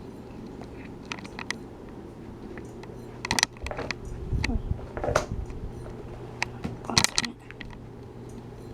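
Handling noise: a few sharp clicks and knocks of hard objects being moved and set down, loudest about three and a half, five and seven seconds in, with lighter ticks between, over a steady low hum.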